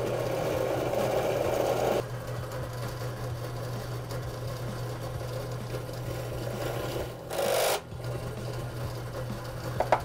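Bench drill press motor running steadily while a stepped drill bit cuts a hole through a thin printer side panel, the cutting loudest in the first two seconds. A brief loud scraping noise comes about seven seconds in, and a few clicks near the end.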